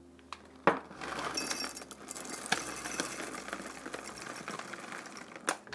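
Chocolate chips pouring from a bag into a measuring cup: a dense, continuous patter of small clinks and rattles. A sharp knock comes just before a second in, and another comes near the end.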